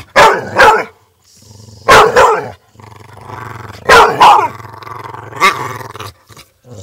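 American Staffordshire terrier barking at close range in short pairs about every two seconds, with a low growl running between the barks.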